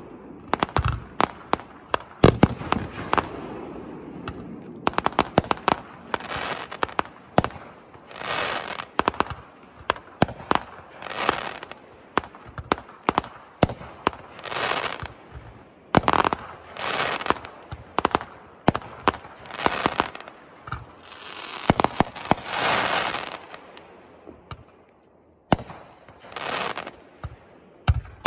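Aerial fireworks going off in quick succession: sharp bangs, many of them followed by about a second of hissing crackle, coming roughly once a second, with a brief lull near the end.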